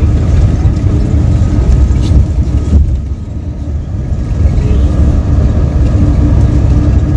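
Shuttle bus running, heard from inside the cabin: a steady low rumble of engine and road noise that eases for a moment about three seconds in, then picks up again.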